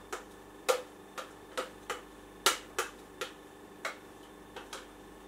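A spoon knocking and scraping inside a blender jar as banana puree is scraped out into a bowl: about a dozen sharp taps at uneven intervals, roughly two a second.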